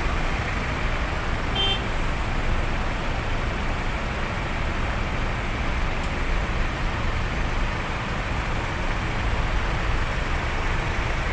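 Steady rumble of road traffic, idling and creeping vehicles in a toll-plaza queue, heard from inside a truck cab. A short beep about two seconds in.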